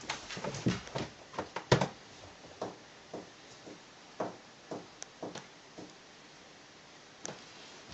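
A dog's paws on carpeted stairs as it climbs: soft, irregular thumps and taps, the loudest about two seconds in, then a few scattered single taps.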